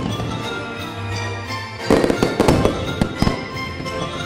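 Fireworks sound effect, a cluster of bangs and crackles about two seconds in lasting over a second, over steady background music.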